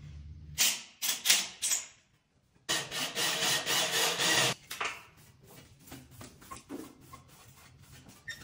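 Cordless drill run in short bursts and then for about two seconds, followed by a string of fainter knocks and scrapes.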